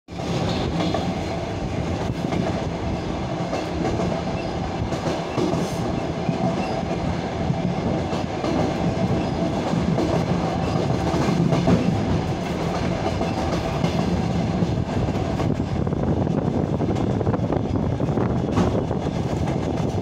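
Passenger train running along the line, heard from aboard: a steady rumble of wheels on rail with occasional clicks over the rail joints.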